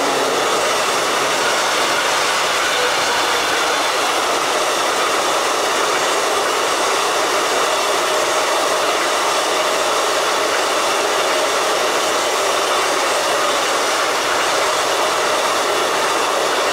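Freight train of gas tank wagons rolling past: a steady, loud rush of wheels on rails.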